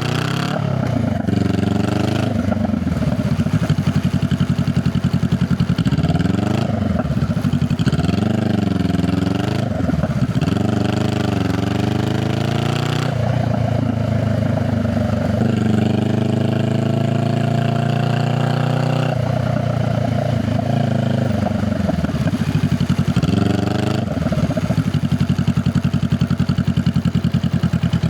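Honda Rebel 500's parallel-twin engine and exhaust while riding, the revs rising and falling again and again as it pulls away through the gears and slows. It settles to a steady, even pulse near the end, like idling.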